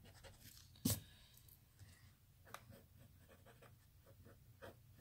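Pencil drawing on paper: faint, short, quick strokes, with one sharp click about a second in.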